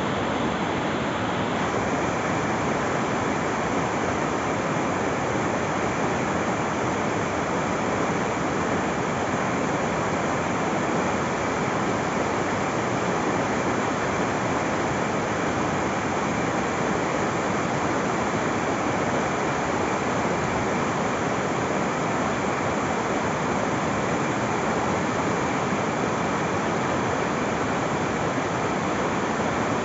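A river in flood rushing: a steady, unbroken noise of fast-moving water.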